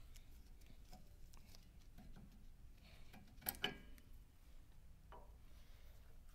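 Faint scattered clicks and taps of metal brake parts and tools being handled, with a sharp double clink about halfway through that rings briefly.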